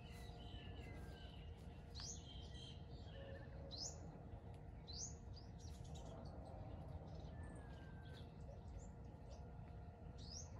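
Faint outdoor birdsong: small birds chirping, with a few quick rising whistles scattered through, over a low steady rumble of background noise.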